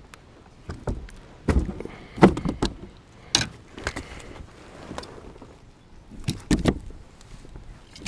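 Irregular knocks and thumps of gear being handled on a fishing kayak's hull, about half a dozen scattered strikes, the loudest a little over two seconds in.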